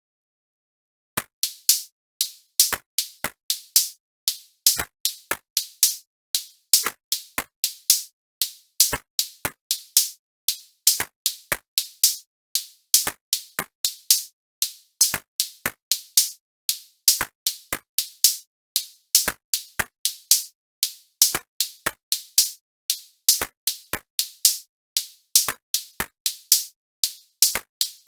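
Electronic drum-machine beat of sharp, crisp hits in a pattern that repeats about every two seconds, starting about a second in.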